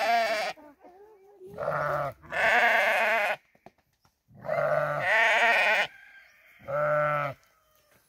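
Sheep and goats bleating: about five calls one after another, several long and quavering, the last one short and steady in pitch.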